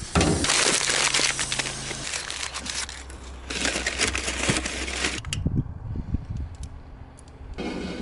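Close rustling and crackling handling noise, then a few dull knocks from the metal lid of a wood-fired hot tub stove being opened and worked, and more rustling near the end.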